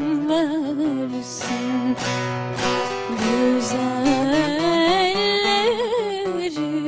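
A solo voice singing a Turkish folk song in a long, ornamented line with wavering pitch, over plucked string accompaniment.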